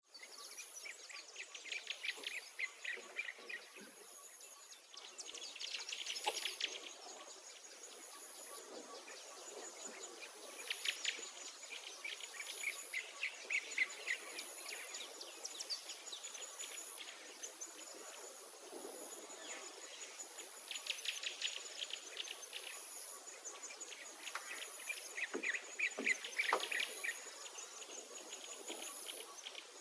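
Birds singing: short trilling phrases repeated every few seconds, over a thin, very high note that pulses about once a second.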